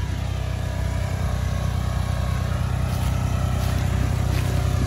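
A vehicle engine running steadily, holding an even low pitch.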